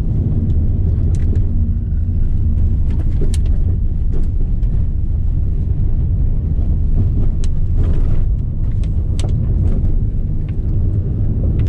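Citroën C4 Cactus with its 1.6 flex engine driving at about 60 km/h on a dirt road, heard inside the cabin. Engine and tyre noise make a steady low rumble, with scattered sharp ticks from the rough surface.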